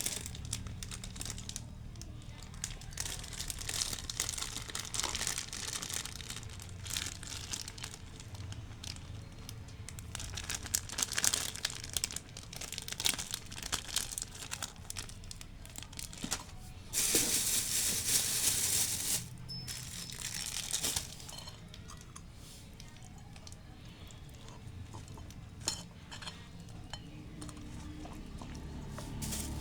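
Plastic takeaway bags crinkling and rustling with many small clicks and scrapes as the food is opened and poured out. There is a louder stretch of hissing rustle a little past halfway.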